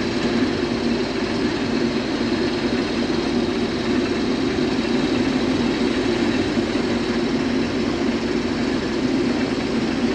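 Case IH combine running steadily while cutting and threshing wheat, a constant low machine drone.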